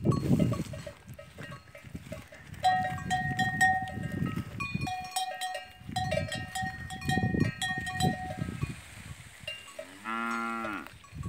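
Cattle bells clanking irregularly as the cattle move about the pen, in ringing metallic clinks of several pitches. A cow gives one short moo near the end. Low dull rumbles run underneath, loudest at the very start.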